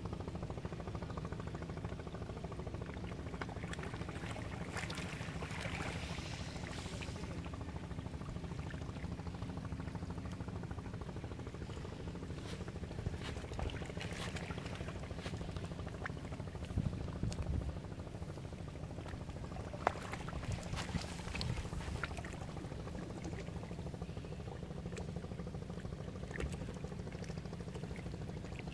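Steady beach ambience: waves washing on the shore, with a low rumble underneath and a few faint clicks now and then.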